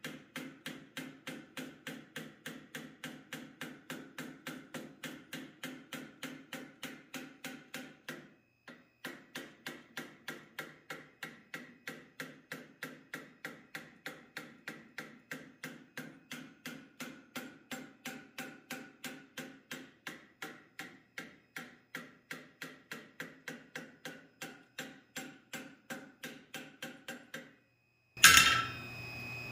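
Hand hammer striking red-hot steel clamped in a bench vise: a steady run of about three blows a second, with one brief pause about eight seconds in. The blows stop shortly before a single loud metallic clank near the end, which rings briefly.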